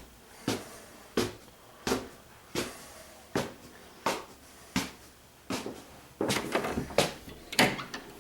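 Footsteps on a hard floor, a regular knock about every 0.7 seconds, getting busier and more uneven near the end.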